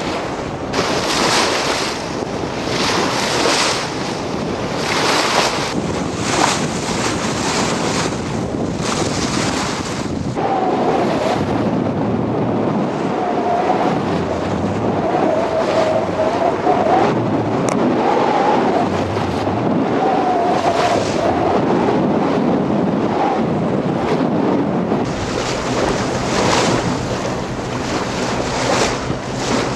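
Wind buffeting the microphone over choppy water, with waves splashing against a boat's hull about every one and a half seconds during the first third.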